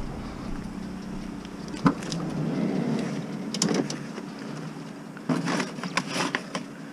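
A car's engine running steadily, with a few short knocks and rustling bursts as items are shifted about in the car, the busiest cluster near the end.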